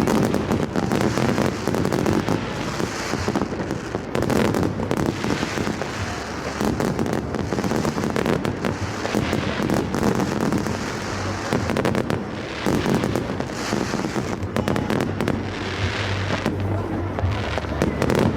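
Fireworks going off in a continuous barrage: dense bangs and crackling, with no break.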